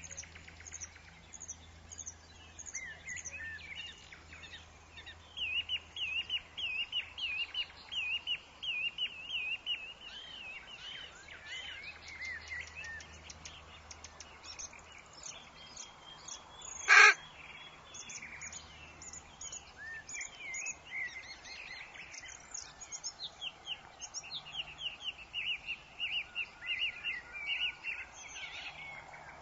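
Woodland birds chirping in rapid series of short, high repeated notes, several birds overlapping. One sharp, loud snap about halfway through stands out above them.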